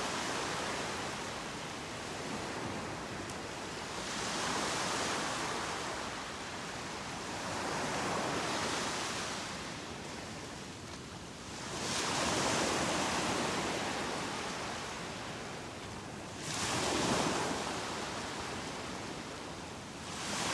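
Ocean waves breaking and washing up on the beach, a continuous hiss that swells and fades every few seconds. Each wave brings a fresh surge, the sharpest ones about halfway through and again past the three-quarter mark.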